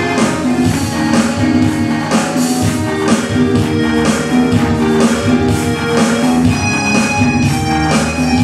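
Live worship music: a band playing with strummed guitar over a steady beat.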